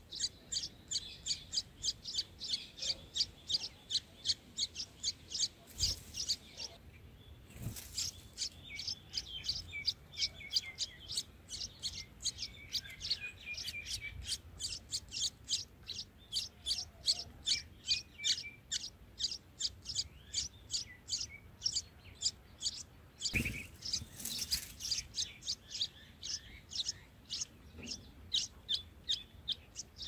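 Bulbul nestlings begging with a rapid, even string of high cheeps, about three to four a second, with softer warbling notes in the middle. A few brief knocks break in, twice near the six-to-eight-second mark and twice around twenty-four seconds.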